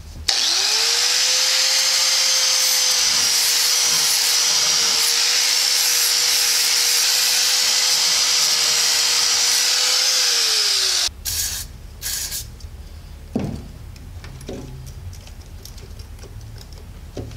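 Cordless angle grinder spinning up and grinding the steel of a truck steering knuckle for about ten seconds, taking off rust and burrs before new kingpin bushings go in, then winding down. A few knocks and clatters follow as the tool and part are handled.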